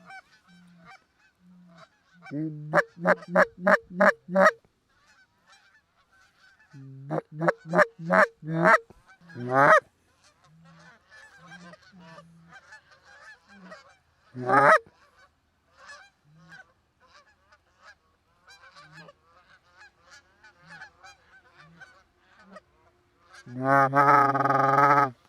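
Geese honking: loud rapid runs of honks at about five a second, twice in the first half, single loud honks around ten and fifteen seconds in, and a long loud call near the end, over the fainter honking of a circling flock.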